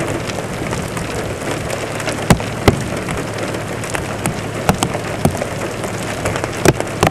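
Rain falling steadily, with single drops striking close to the microphone as irregular sharp ticks over the steady hiss, and a faint low hum underneath.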